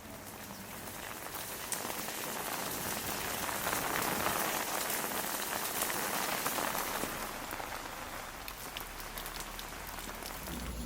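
Rain falling steadily on hard surfaces, a dense patter of many small drop splashes that grows a little heavier toward the middle.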